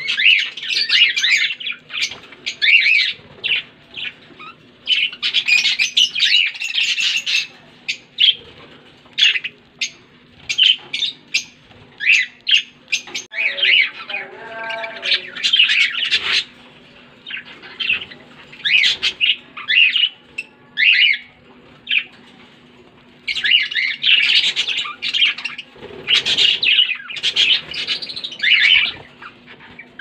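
Budgerigars chirping and chattering in quick runs of high calls with short pauses between, over a faint steady hum.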